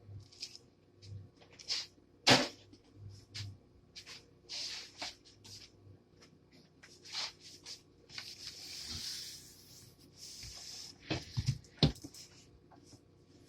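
Knife clicking and knocking on a cutting board while a red bell pepper is cut and its core taken out: scattered sharp taps, one loud knock about two seconds in, a few seconds of scraping or rustling near the middle, and a quick run of knocks near the end.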